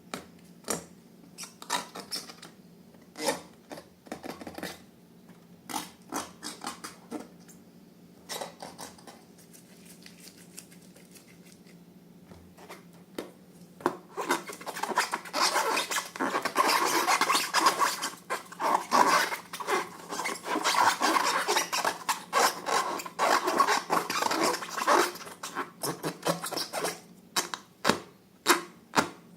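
Slime-making materials handled by hand: scattered sticky clicks and taps at first, then from about halfway a dense stretch of rubbing and crackling that thins out into separate clicks near the end.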